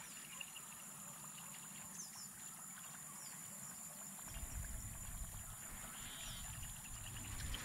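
Faint outdoor quiet with a thin steady high whine and a few faint short chirps; about four seconds in, a low rumble sets in.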